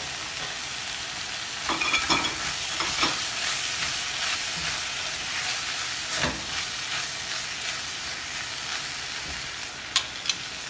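Chopped onion, leek and carrots sizzling in oil in a pot as they are stirred with a silicone spatula, a steady frying hiss with a few soft knocks as the carrots go in and are turned. A sharp clink near the end, as a spoon is set on a plate.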